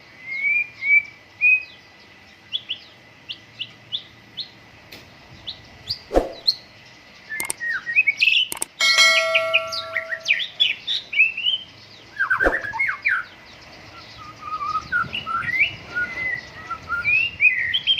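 White-rumped shama singing: a varied run of quick chirps and whistled phrases, with a few sharp clicks and a harsh buzzing note about a second long near the middle.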